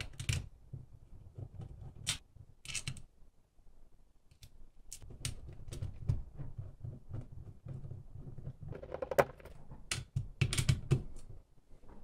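Scattered small clicks and metal taps from ring-terminal battery cables being fitted onto a circuit breaker's terminal studs and the nuts turned down with a hand tool, with rustling of hands and cable on the work surface. Brief clusters of quicker clicks come around two seconds in and again near the end.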